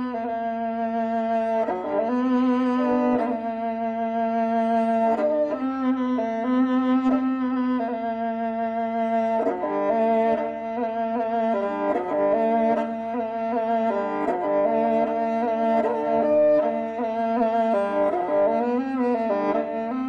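Kobyz, the Kazakh two-stringed bowed instrument, played solo: a kyui melody bowed over a steady low drone note. The pitch slides and wavers near the end.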